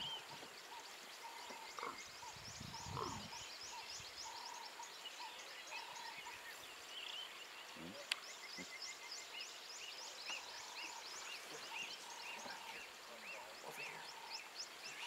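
Quiet bush ambience of small animals calling: a rapid string of high chirps over a repeated lower piping note. A brief low sound comes about two and a half seconds in, and a single click near the middle.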